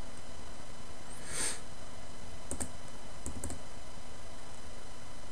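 Computer mouse clicks in quick pairs, one pair about two and a half seconds in and two more pairs about a second later, over a steady background hum, with a short hiss about a second and a half in.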